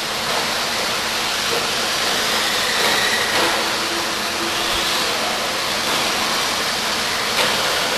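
Electric RC off-road buggies racing on the track: a steady hiss of motors and tyres, with faint snatches of motor whine.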